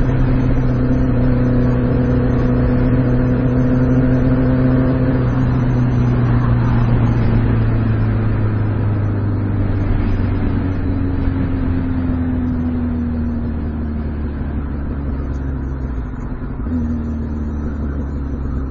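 2006 Kawasaki Ninja ZX-6R 636's inline-four engine running at a steady pitch, then slowly falling in pitch as the revs drop, with a short blip of revs near the end, over a steady hiss.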